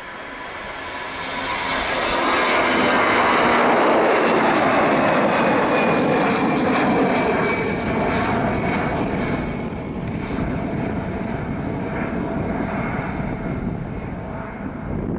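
Airbus A320-214's twin CFM56 turbofans at takeoff thrust as the jet lifts off and climbs away: a jet roar with a whine over it that swells over the first few seconds, peaks, then eases off, the whine sinking slightly in pitch as the aircraft recedes.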